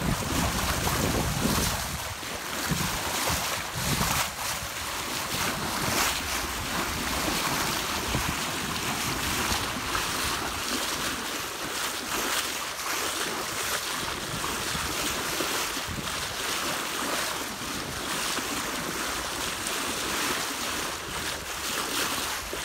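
Water rushing and splashing along the hull of a Catalina 30 sailboat under sail, as the bow wave breaks beside it, with wind buffeting the microphone.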